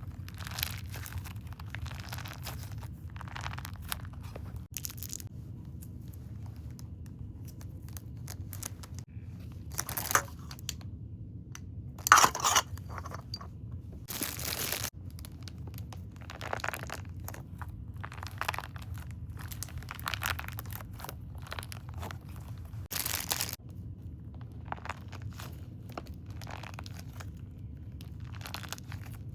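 Plastic packaging crinkling, crunching and tearing as it is handled and opened, in irregular short bursts, the loudest about twelve seconds in, over a steady low hum.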